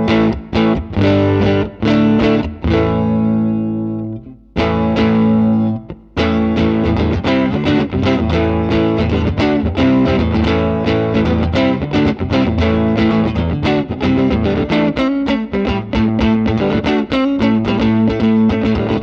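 Electric guitar (Fender Stratocaster) played through a Line 6 Helix amp-and-cab model with some distortion: picked chords, one left ringing and fading about three seconds in, then after a short break a brisk run of picked notes and chords.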